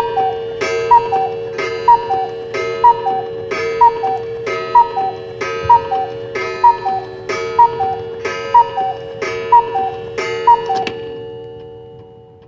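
Cuckoo clock striking twelve: twelve two-note falling "cuck-oo" calls, about one a second, each opening with a sharp strike, over a steady ringing tone. After the last call, about 11 seconds in, the ringing dies away.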